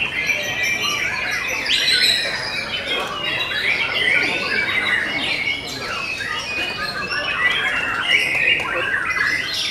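White-rumped shamas (murai batu) singing: a dense, unbroken stream of overlapping whistles, trills and quick chattering phrases.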